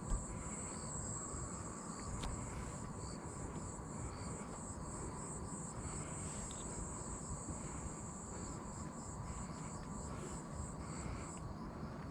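Insects chirring steadily in a high, even buzz that stops shortly before the end.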